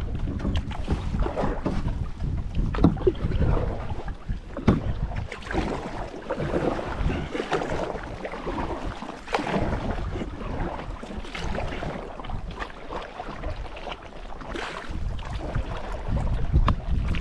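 Kayak being paddled, with irregular paddle splashes and knocks, while strong wind buffets the microphone with a heavy low rumble.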